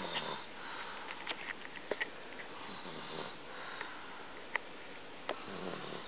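A sleeper snoring with slow breaths roughly every three seconds, each a noisy rasp, with several short sharp clicks between the breaths.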